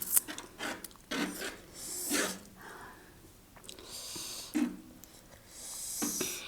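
Close-up mouth sounds of eating spicy noodles: short hissing slurps and sharp intakes of breath, about one a second, with small wet clicks between them.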